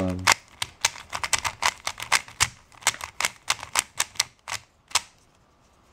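Stickerless 3x3 Rubik's-type cube being turned quickly by hand: an irregular run of sharp plastic clicks as the layers snap round, stopping about five seconds in.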